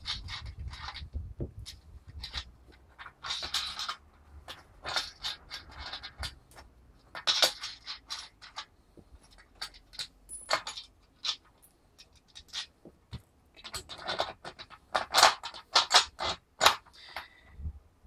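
Metal nuts and washers clinking and scraping against threaded studs and the aluminium flange and hub plate as they are picked up and run on finger tight by hand. Scattered sharp clicks and rattles, thickest near the end.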